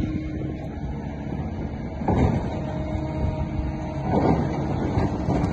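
Hydraulic excavator's diesel engine running steadily at a quarry rock pile, a low rumble with a steady engine tone, swelling louder twice, about two and four seconds in.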